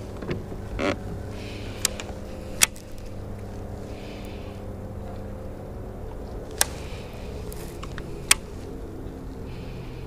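A motor runs with a steady low hum, with four sharp clicks spread through it.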